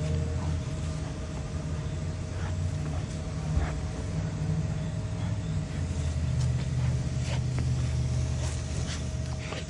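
Steady low mechanical hum with a thin constant whine above it, with scattered light clicks and scuffs from two dogs wrestling.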